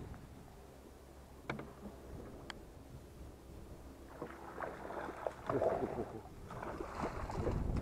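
Water sloshing and lapping at the hull of a small boat, with two sharp clicks in the first half. From about halfway a run of crackling, splashing handling noise begins.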